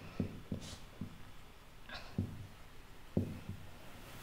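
Marker pen writing on a whiteboard: faint, irregular taps and strokes of the tip against the board.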